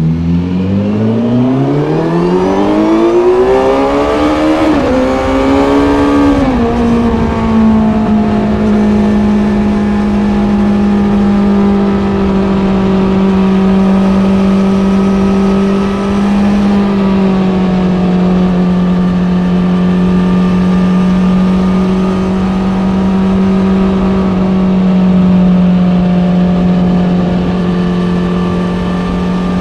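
Kawasaki Z900 inline-four through an Ixil SX1 full exhaust system, accelerating with the revs climbing steeply for the first few seconds. It then settles and runs at a steady engine speed, easing off slightly about halfway through.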